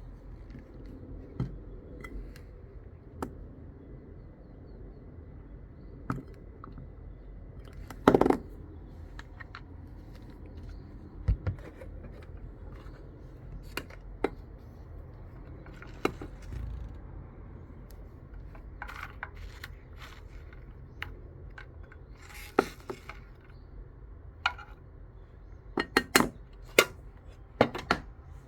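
Scattered sharp clicks and light taps over a steady low hum, the loudest about a third of the way in and a quick cluster of them near the end.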